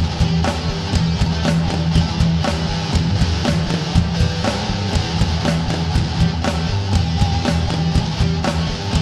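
Background rock music with guitar and a steady drum beat, about two hits a second.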